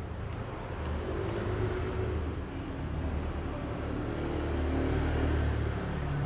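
A motor vehicle's engine rumbling nearby, swelling about a second in and staying strong until near the end, over faint crunching of a cat chewing dry kibble.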